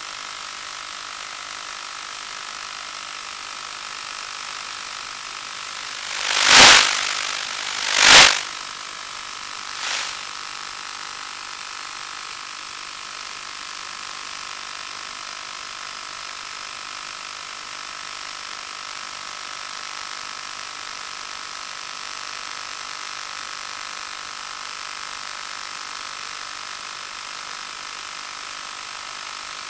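Steady hiss from the audio channel of an analog 1.2 GHz FPV video receiver, with a few faint steady tones in it. Two loud bursts of static come about six and a half and eight seconds in, and a weaker one near ten seconds. This is the noise sound the uploader gets when the diversity ground station is on the ReadyMade RC receiver with the patch antenna, the one that also gives the black-and-white picture.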